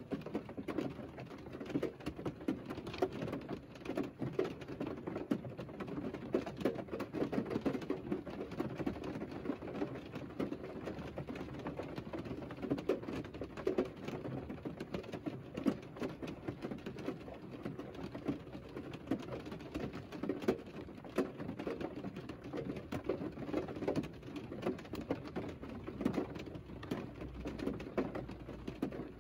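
Rain on a parked Mercedes heard from inside the cabin: a dense, irregular pattering of drops.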